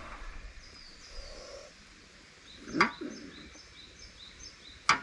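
Birds chirping in the background, a string of short high chirps, with two sharp knocks about three seconds in and near the end.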